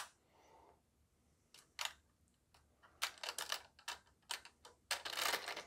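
Metal coil spring of a Hydro Strike Pulsar Pro gel blaster clicking and scraping against the plastic housing as it is fed back into the back of the gearbox. A couple of isolated clicks, then a run of rapid clicks building to a denser rattle near the end.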